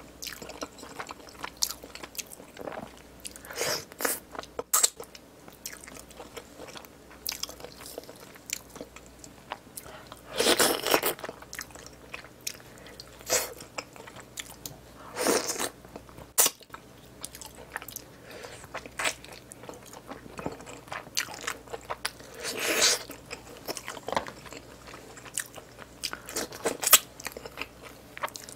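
Close-miked chewing and biting of spicy braised pork backbone, with wet chewing, sharp clicks and a few louder crunches several seconds apart.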